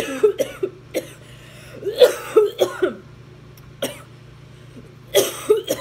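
A woman coughing in three fits of several quick, harsh coughs: a bit of chili pepper from 2x spicy ramen has caught in the back of her throat.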